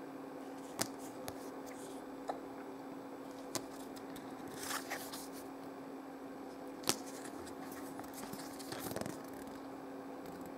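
Quiet handling of small picture cards: a scattering of light clicks and rustles as they are picked up, held up and swapped, with one sharper click about seven seconds in, over a faint steady hum.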